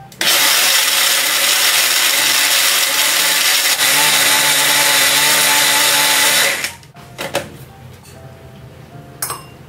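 A small electric kitchen appliance motor, such as a blender, runs loudly for about six seconds with a steady hum, switching on suddenly just after the start and cutting off suddenly.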